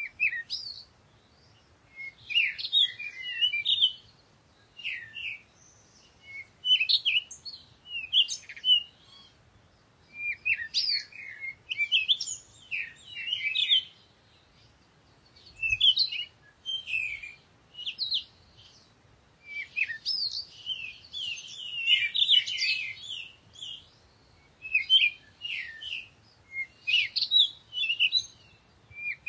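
Birdsong: quick, high chirping phrases a second or two long, repeated every couple of seconds with short pauses between.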